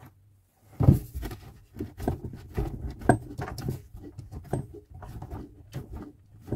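Irregular light clicks, scrapes and knocks of hand work on the underside of a kitchen mixer tap as its fixing nut is tightened by hand.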